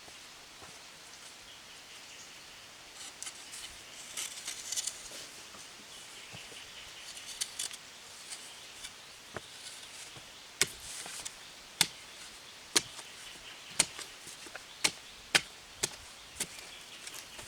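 Soft scraping and rustling, then sharp knocks or taps repeating about once a second from a little past halfway.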